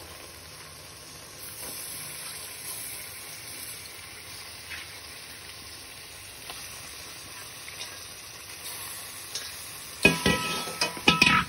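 Raw mutton pieces sizzling steadily in hot oil and fried onions in a pressure cooker. About ten seconds in, a metal spoon starts knocking and scraping against the pot as the meat is stirred, louder than the sizzle.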